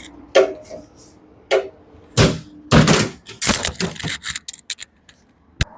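A run of irregular clicks, taps and knocks as the dryer's cabinet panels are handled and fitted back on: a few single knocks, then a quick clattering string, and one last sharp click near the end.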